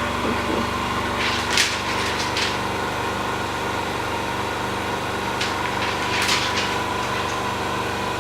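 Steady electric machine hum from workshop equipment, with a few short hissing sounds over it about a second and a half in and again around six seconds in.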